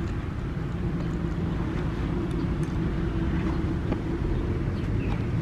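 Steady low background rumble with a faint hum and a few light clicks.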